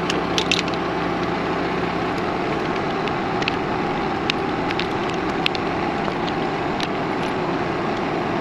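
Tractor engine running steadily, its low drone easing about two seconds in, with several short sharp clicks of hand tools on metal.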